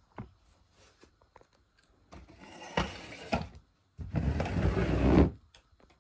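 Fabric rustling and handling noise close to the microphone. It comes in two stretches of about a second each, the second one louder, after a few light clicks.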